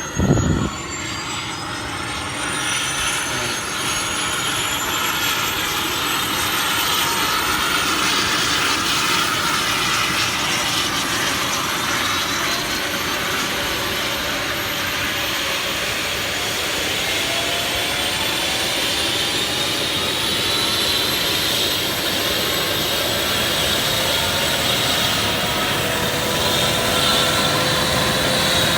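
Airbus EC135 twin-turbine helicopter starting up: high turbine whines rise slowly in pitch over a loud, even rush as the engines spool up. A short bump sounds just after it begins.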